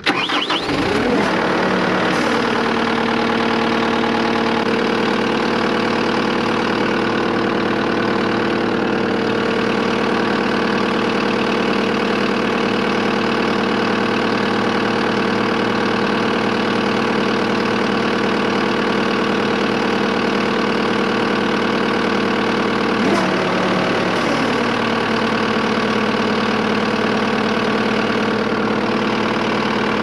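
Cat 259D compact track loader's Cat C3.3B diesel engine catching and starting right after a fuel filter change and priming, its speed settling within a couple of seconds into a steady idle. Its pitch dips briefly and recovers near the end.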